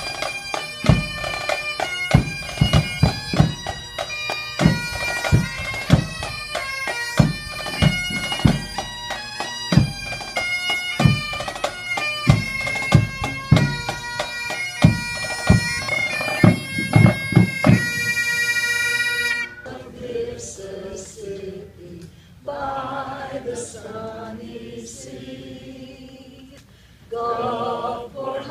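Bagpipes play a tune over their drone, with a regular low beat under it, and end on a long held note about two-thirds of the way through. Then a group of voices starts singing the school song unaccompanied, more quietly.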